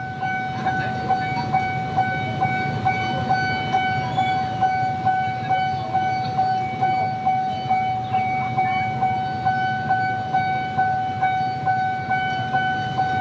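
Railway level-crossing warning bell ringing steadily: a high tone pulsing about twice a second, which sounds while the crossing is closed for an approaching train. A low rumble runs underneath.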